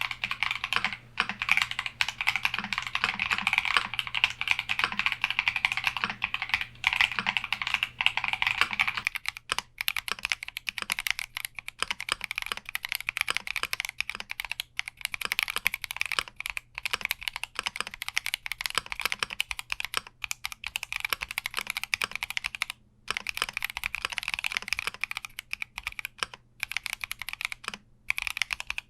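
Continuous fast typing on a Keychron Q60 mechanical keyboard, a dense stream of key clicks and clacks. About nine seconds in, the keystroke sound changes and turns brighter, as a different switch set or recording takes over.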